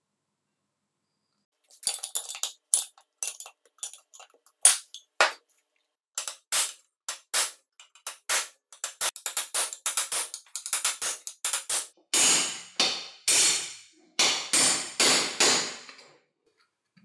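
Hammer striking a brass punch to drive the pivot pin out of a circular saw's rusted steel base: a run of sharp metallic taps starting about two seconds in and coming faster. Near the end the blows ring longer, until they stop about a second before the end.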